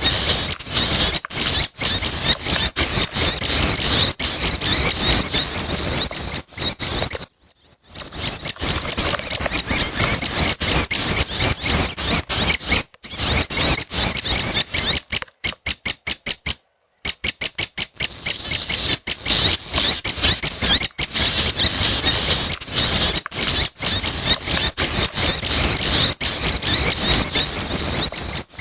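Prenjak kepala merah chicks giving high-pitched begging calls in a dense, rapid stream, broken by a short pause about a quarter of the way in and a run of evenly spaced short calls about halfway.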